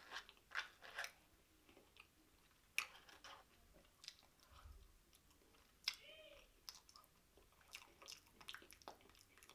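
Quiet chewing, with scattered wet smacks and clicks of the mouth, as a person eats a spoonful of a KFC Famous Bowl of mashed potatoes, gravy and crispy chicken bites.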